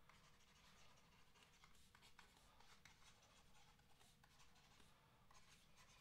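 Near silence, with faint scattered taps and scratches of a stylus writing on a drawing tablet.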